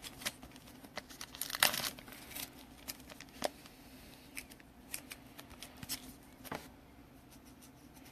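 Trading cards and their plastic sleeves or packaging being handled: faint, scattered crinkling and light clicks, with a short louder rustle about a second and a half in.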